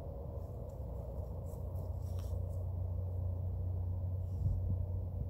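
Industrial plant machinery running with a steady low engine-like roar and a droning hum with harmonics, the hum swelling a little after a second or two. The recordist blames the noise on failing equipment.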